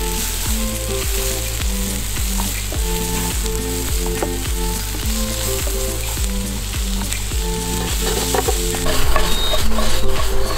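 Sliced onions sizzling as they fry in a nonstick pan, stirred and scraped with a slotted spatula. Near the end the pan is tossed, and the clatter and sizzle get louder.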